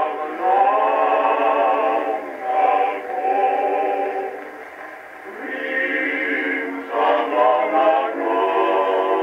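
Male vocal quartet singing slow close-harmony chords from an old Edison electrical disc recording, the sound narrow and thin, with nothing below the voices' range and little above it. Phrases are held and then break off briefly twice before new phrases begin.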